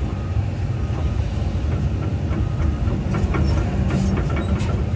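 Excavator's diesel engine running steadily under load as it drags a log in against the river current, with scattered clicks and brief squeaks from about three seconds in.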